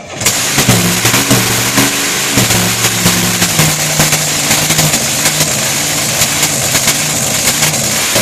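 Supercharged, alcohol-injected 468 cubic-inch big-block Chevy V8 in a drag boat, bursting into life on the first startup of a fresh engine build and running loud. Its speed wavers up and down for the first few seconds, then settles into a steady run.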